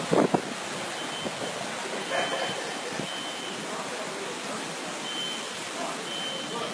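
Steady rush of hurricane wind and water, with a short high electronic beep sounding about once a second, and a few hard thumps right at the start.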